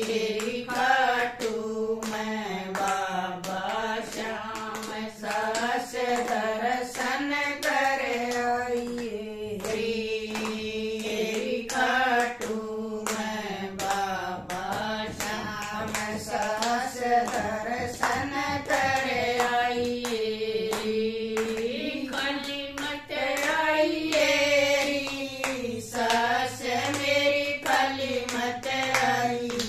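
Group of women singing a Haryanvi devotional bhajan together, keeping time with steady hand claps.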